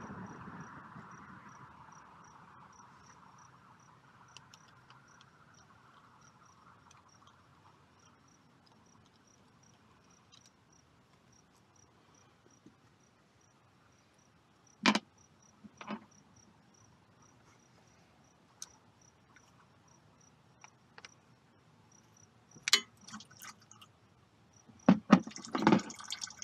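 A quiet background with an insect chirping steadily at about three chirps a second. It is broken by a few sharp metallic clicks and knocks from hand tools working on the engine's oil filter cover: two loud ones about halfway through and a quick cluster near the end.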